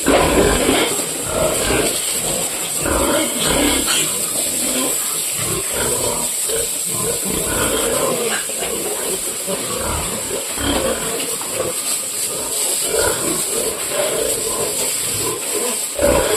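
Pigs grunting in short, irregular bursts, over a steady high hiss.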